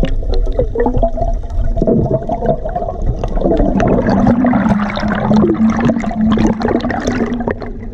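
Muffled underwater water rushing and bubbling, picked up by a submerged camera, with a steady low hum in the second half.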